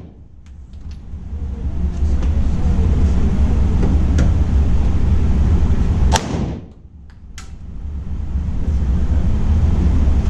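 Pistol shots, two of them about four seconds apart: one about six seconds in and one at the very end. Each shot rings out briefly over a steady low rumble.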